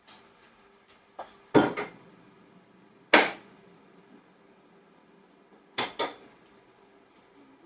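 Metal tools and hardware knocking and clanking, handled during a vise installation on a workbench: a few separate sharp clanks, the loudest two about a second and a half apart, then two quick clanks close together near the end.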